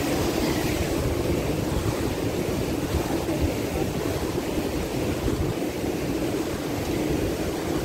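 Steady road and engine rumble of a moving car.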